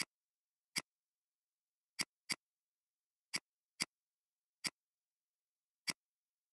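Eight sharp, separate computer mouse clicks at uneven intervals, two of them in quick succession about two seconds in.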